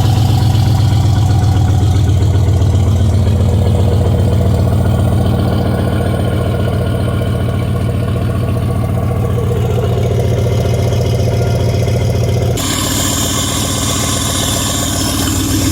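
1992 Dodge Ram B250 van's engine idling steadily. The engine has a leak at the exhaust manifold. About three-quarters of the way through, the sound suddenly turns brighter and hissier.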